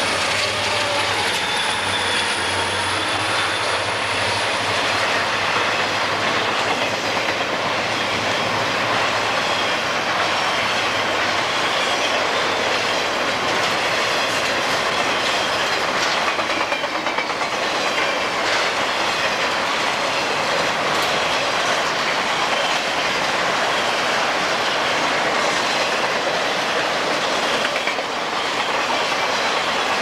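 Southern Pacific freight train passing close by. Diesel locomotive rumble and a thin wheel squeal fade within the first few seconds, then the freight cars roll past with steady wheel-and-rail noise and some clickety-clack.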